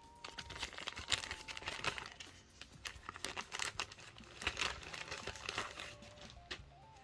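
Paper and card packaging crinkling and rustling in irregular bursts as a vintage View-Master reel packet is handled and pulled out.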